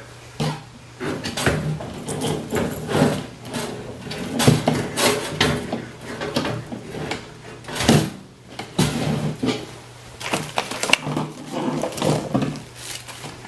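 Irregular knocks, clunks and scrapes of computer hardware being handled: a power supply and a metal PC case being moved and fitted together.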